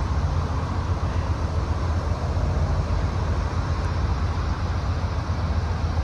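Amtrak GE Genesis diesel-electric locomotive engine running with a steady, deep rumble.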